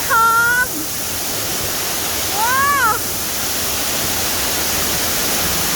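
Waterfall rushing steadily, with two short high-pitched calls from a voice, one at the start and one about halfway through.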